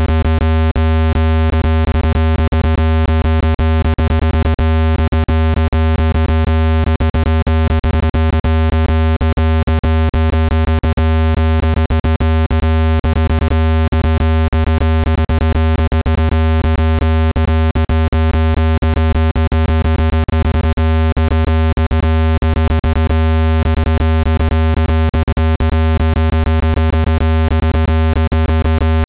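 Speaker-cleaning tone: a loud, steady, deep synthesized hum with buzzy overtones, peppered with irregular clicks, meant to vibrate dust out of a phone or speaker grille.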